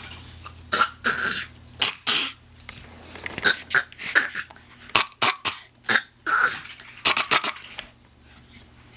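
A baby making a rapid string of short cough sounds as vocal play, 'talking' in coughs rather than coughing from illness. The coughs stop about a second before the end.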